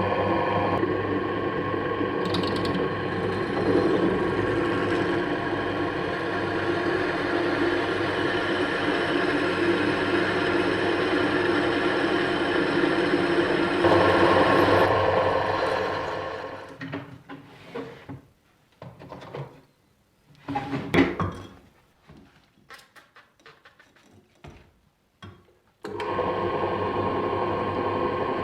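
A power tool's electric motor running steadily, stopping about sixteen seconds in. Scattered short knocks and clatters follow, then the motor runs again near the end.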